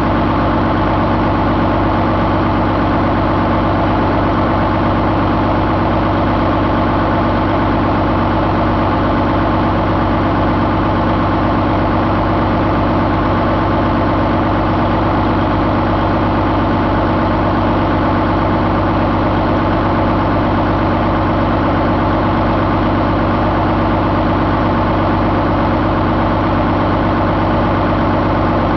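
2013 Paccar MX-13 inline-six turbodiesel engine idling steadily on a test stand, out of its truck.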